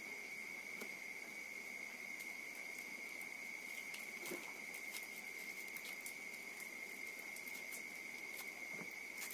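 Faint scratching and small clicks of fingers picking at the taped packaging on the end of a wrapped air-rifle barrel, over a steady high-pitched whine.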